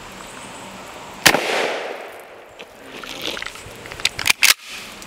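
A single shot from a Mossberg 590S 12-gauge pump shotgun firing a less-lethal ball round, with an echo fading over about a second. About three seconds later come two sharp clicks of the pump action being worked.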